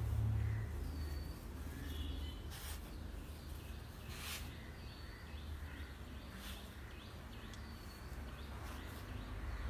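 Birds chirping faintly in the background, with short high notes every second or two, over a low steady rumble. A few brief rustles come as leafy sprigs are handled and pushed into floral foam.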